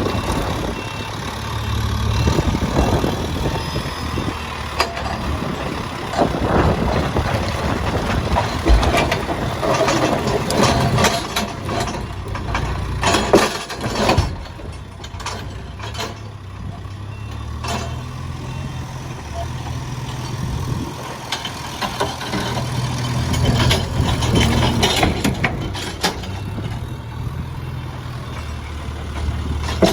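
Case 851EX backhoe loader's diesel engine running, its speed rising and falling, with scattered metallic knocks and clanks.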